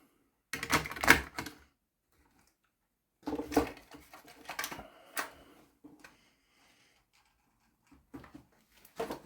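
Hard plastic clicking and clattering from HO-scale model locomotives being handled, in three short bursts with pauses between.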